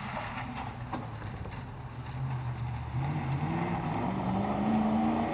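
Off-road hill rally car's engine pulling at low revs, then rising steadily in pitch from about halfway as it accelerates, over the rough noise of tyres on a loose, rocky track. A single knock about a second in.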